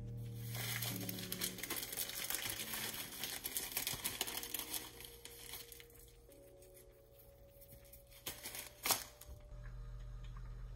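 Plastic packet of cumin seeds crinkling as it is picked up and handled, for about five seconds. Then quieter, with a sharp knock about nine seconds in.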